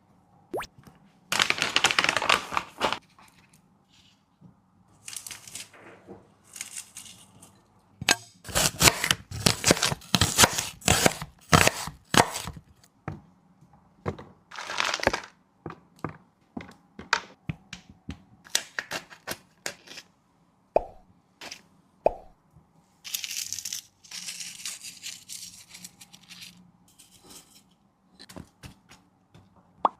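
A dog crunching and chewing food, in several bursts of sharp crunching with pauses between.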